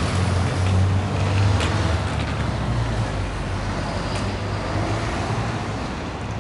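Street traffic: a motor vehicle's engine rumbling close by, loudest in the first couple of seconds and then slowly fading as it moves off.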